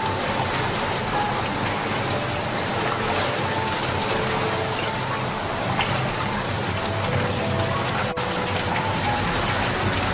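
Steady rain falling, a dense even patter, with faint held tones at changing pitches underneath.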